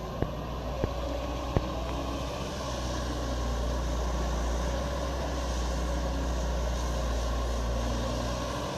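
Caterpillar 320D hydraulic excavator's diesel engine running steadily while it works soil, with three sharp knocks in the first two seconds and the engine getting slightly louder from about three seconds in.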